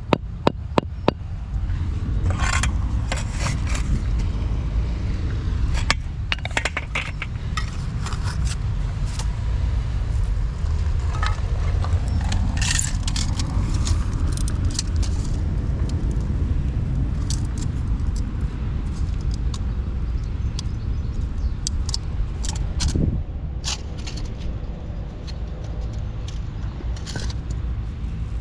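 Scraping and clinking of hand work, with many sharp clicks, over a steady low rumble.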